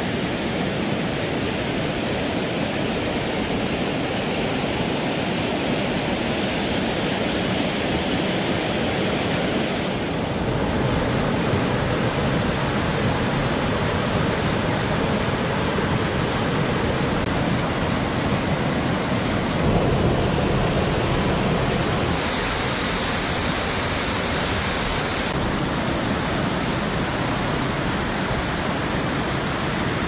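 Rushing water of a river cascade pouring over stepped rock ledges, a steady hiss of falling water. Its tone changes abruptly about a third of the way in and a few more times later on.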